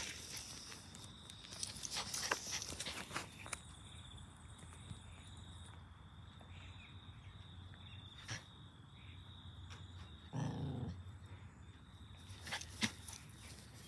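Cavoodle puppy giving one short, low growl about ten seconds in. Faint rustling and knocks come in the first few seconds, and a faint steady high tone runs underneath.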